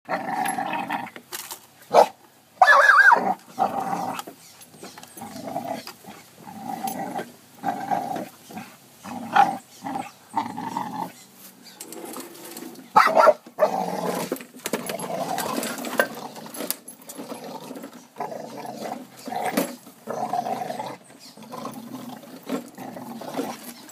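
Pit bull growling in repeated bursts while going at a push lawn mower's wheels, with a few sharp knocks between growls.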